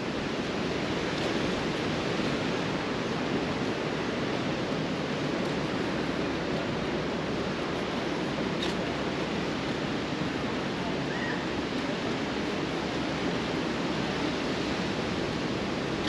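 Steady, even rushing noise with no rhythm and no voices; a faint short chirp sounds about eleven seconds in.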